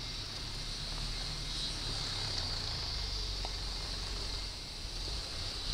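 Steady high-pitched drone of jungle insects, with a low rumble underneath.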